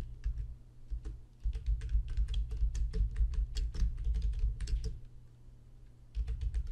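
Typing on a computer keyboard: a few scattered key clicks, then a quick run of keystrokes for about three and a half seconds, a short pause, and more typing near the end.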